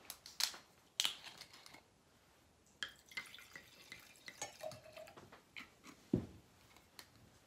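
Rosé wine being handled in a glass for tasting: a few quiet, sharp clinks of glass with small liquid sounds between them.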